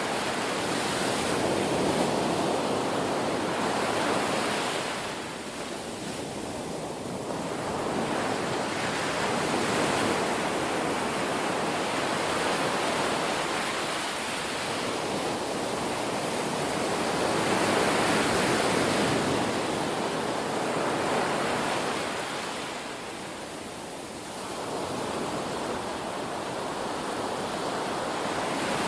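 Ocean waves breaking and washing on a shore, a continuous rush of surf that swells and eases every few seconds.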